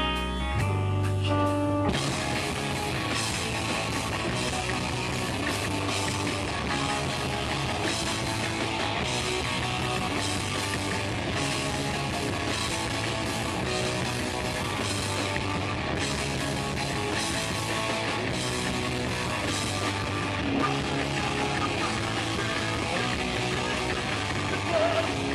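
Live heavy rock band playing: distorted electric guitars, bass and drums. About two seconds in, ringing guitar chords give way to the full band playing hard. The loud music overloads the small camera microphone, so the recording sounds distorted.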